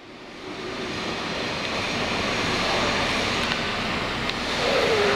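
Dongfeng truck's engine running steadily, with a low even pulsing, fading in over the first second.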